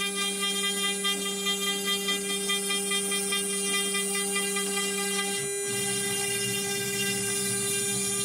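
CNC wood router's spindle running with a steady whine while a 4 mm end mill surfaces the chipboard spoilboard. The lowest tone breaks off briefly about five and a half seconds in.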